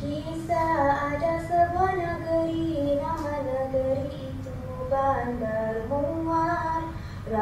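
A solo high voice singing a slow melody in long held notes that waver and step up and down, over a steady low hum.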